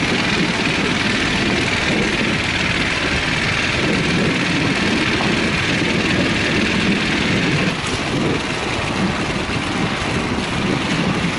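Wind buffeting a bicycle-mounted camera's microphone, with tyre and road noise from a bicycle rolling along at speed: a steady fluttering rumble and hiss that eases slightly about eight seconds in.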